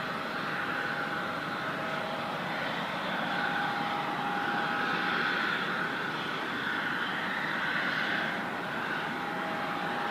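Jet airliner engines running steadily: a whine over a rushing noise that swells and eases slightly.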